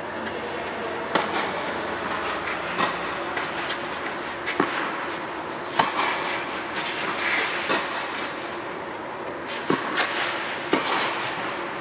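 Tennis rally on a clay court: rackets strike the ball with sharp pops every one to two seconds, echoing inside an air-dome hall.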